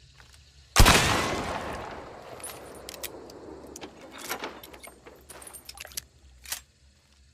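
A single rifle shot about a second in, its report dying away over about a second. It is followed by a run of short metallic clicks and rattles from the rifle being handled, with a last sharp click near the end.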